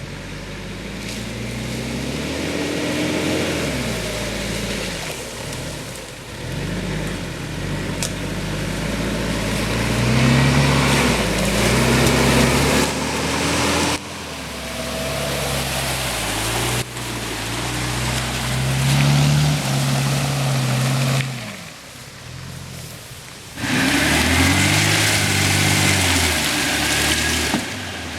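Off-road SUV engine revving up and down over and over as it pushes through deep mud, the sound breaking off suddenly several times.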